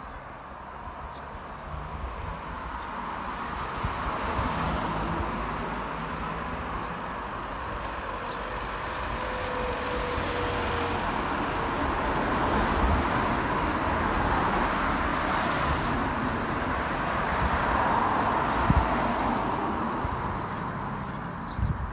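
Road traffic passing: car engine and tyre noise swelling slowly, loudest past the middle, then fading near the end.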